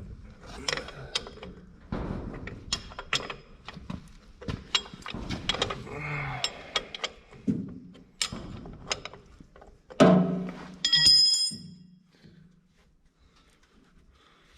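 Steel wrench clicking and clanking on the bolt of a Ford 8N tractor's remote oil filter housing as it is worked loose, with irregular metallic knocks and one loud ringing clink about ten seconds in.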